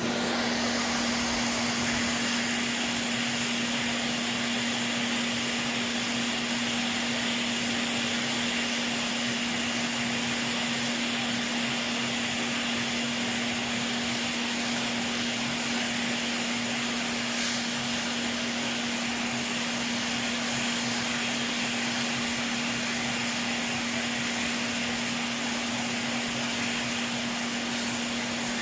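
Hot air rework station blowing steadily to melt the solder on a PS4 HDMI port: a continuous rush of air with a steady fan hum underneath.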